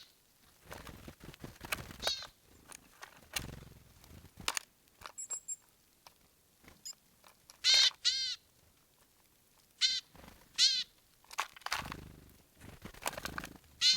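Small birds calling in short runs of quick chirps, the longest about eight seconds in, with soft rustling and faint clicks between them.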